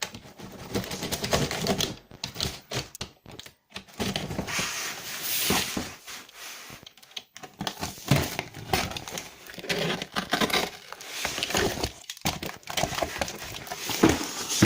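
A cardboard box being opened and its packaging handled: bursts of rapid clicking and rattling, with rustling and crinkling of paper or plastic.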